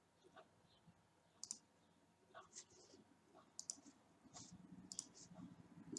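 Faint, irregular clicks of a computer mouse as drawing operations in CAD software are confirmed, about eight in all, starting about a second and a half in.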